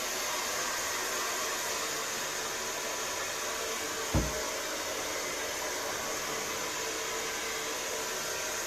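Handheld hair dryer blowing steadily, a constant airy rush with a faint hum, with one brief low thump about four seconds in.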